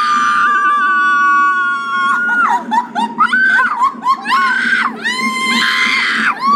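Children screaming, as if on a roller coaster: one long high-pitched scream held for about two and a half seconds, then a run of short rising and falling shrieks, and two voices screaming together near the end.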